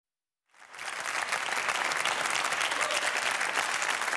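Studio audience applauding. The clapping fades in about half a second in and then holds steady.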